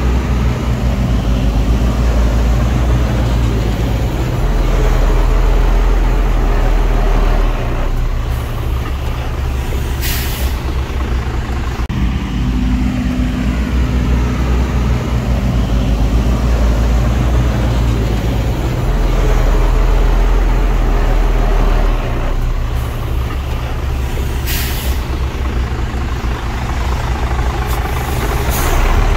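Heavy diesel engines of dump trucks and bulldozers running steadily, swelling louder twice. Short bursts of air hiss, from air brakes, cut through three times.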